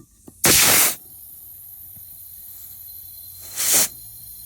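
Compressed air hissing in two short bursts, the first about half a second long and the second shorter near the end, with a steady fainter noise running after the first: air being fed into the plumbing lines for a 100 psi pressure test.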